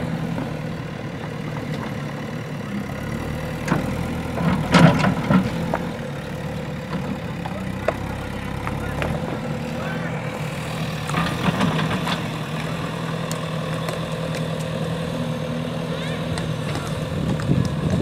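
JCB backhoe loader's diesel engine running steadily as the machine drives on sand, with a brief louder burst about five seconds in and the engine getting louder near the end.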